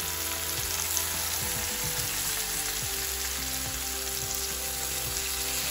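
Marinated chicken leg quarters frying in oil on a hot cast-iron skillet: a steady sizzle.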